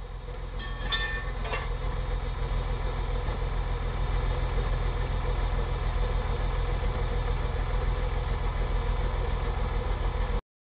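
Engine idling with a steady low rumble, heard from inside the stopped car, with a few short high tones about a second in; the sound cuts off suddenly near the end.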